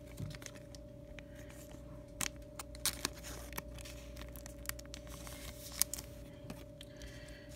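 Hands handling trading cards close to the microphone: light rustling with scattered sharp clicks, over a faint steady hum.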